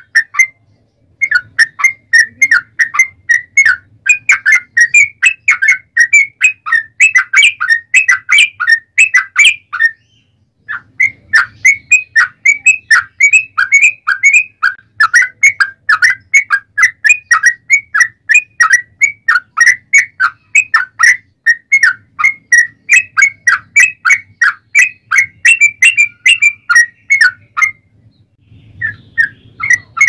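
Yellow-vented bulbul (trucuk) singing a loud, long, rapid song of quick repeated chattering notes. The song runs in long phrases, with short breaks about a second in, about a third of the way through, and near the end.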